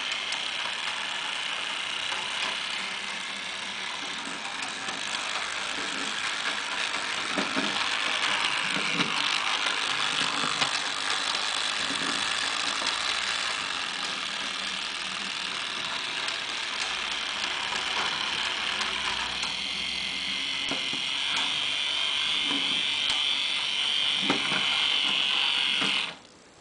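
Model Milan streetcars running on the track: a steady whir from their small motors and gears, with occasional clicks. The running cuts off suddenly near the end.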